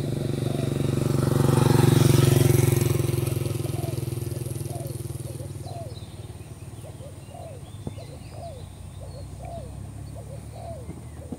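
A motorcycle passing by: its engine hum grows to a peak about two seconds in, then fades slowly as it moves away. Faint short calls repeat about twice a second as it fades.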